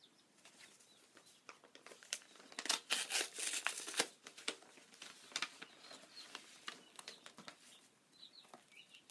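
Paper envelope being torn open and its paper crinkled, a run of crackling rustles with the busiest tearing about two and a half to four seconds in.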